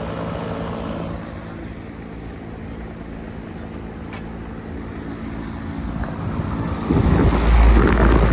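Bryan air conditioner condensing unit running, its Copeland scroll compressor and condenser fan giving a steady low hum. About seven seconds in, a much louder low rumble sets in over it.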